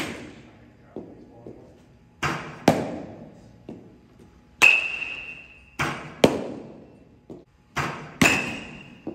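Baseballs pitched and caught in a catcher's mitt: sharp pops and cracks, mostly in pairs about half a second apart and repeating every couple of seconds, two of them followed by a brief high ring.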